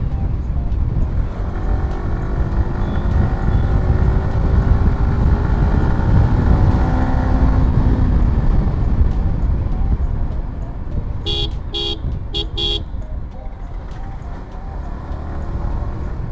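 Yamaha R15 V4's 155 cc single-cylinder engine running under way, with wind rush on the microphone; its pitch rises and falls through the first half. A little past the middle, a vehicle horn beeps four short times.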